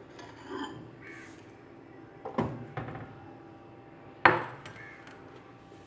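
A few knocks and clinks of a dish being handled. The loudest is a sharp knock with a brief ring about four seconds in, with softer ones about half a second and two and a half seconds in.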